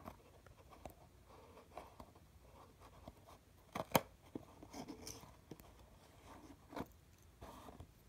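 Faint small clicks and rustling as fingers work a phone charm's little metal chain and clasp ring, with a sharper click about four seconds in.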